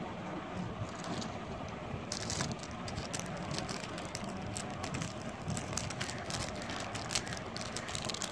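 Plastic jewellery packets rustling and crinkling as they are handled, with a run of short sharp crackles from about two seconds in, over steady background noise.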